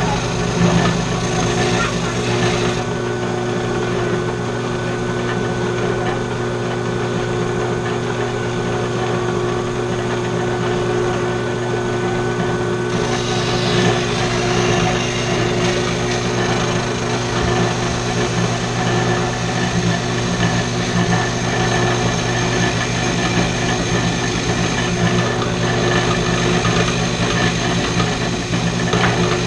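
Steady machine hum from something running in the shop, unbroken throughout with a constant pitch; the higher hiss in it drops away about three seconds in and comes back about thirteen seconds in.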